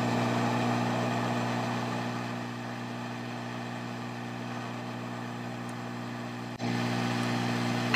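Hot air rework station blowing on a fluxed phone logic board to melt the solder under the backlight booster chip: a steady airy hiss over a fan hum. The hiss eases about two seconds in.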